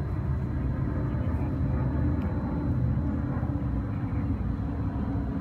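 Outdoor background noise: a steady low rumble with no speech.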